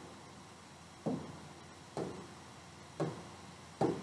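A row of dull knocks about once a second, the last ones loudest.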